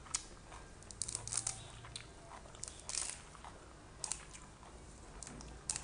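Fresh moringa (malunggay) sprigs crackling and rustling as they are handled and eaten raw, in scattered short crisp bursts.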